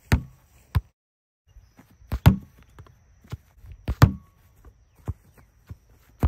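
Soccer ball being kicked and bouncing off a ¾-inch plywood rebounder board: a series of sharp thuds of foot on ball and ball striking the wood, the loudest pair a little after two seconds and again at about four seconds.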